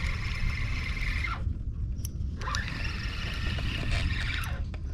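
Spinning reel being cranked, its gears whirring steadily as line is wound in. It runs in two stretches, stopping about a second and a half in and starting again about a second later until just before the end.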